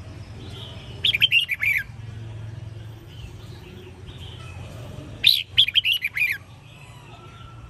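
Red-whiskered bulbul singing two short phrases, each a quick run of bright whistled notes, one about a second in and another about five seconds in.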